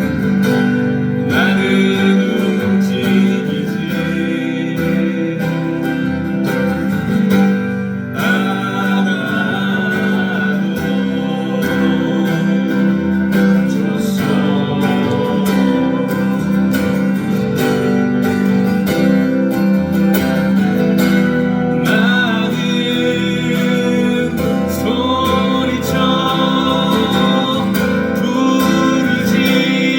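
Live music with strummed acoustic guitar and band accompaniment, and singing over it.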